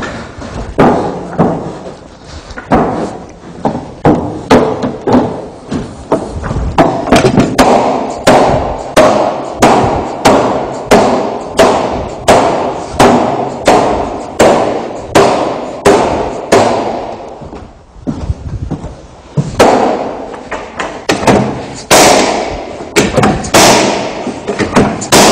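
A long run of sharp thuds, about one to two a second with a short pause about two-thirds of the way through: hidden deck fasteners being driven into AZEK decking boards by striking the cap of an HID Fast fastening tool.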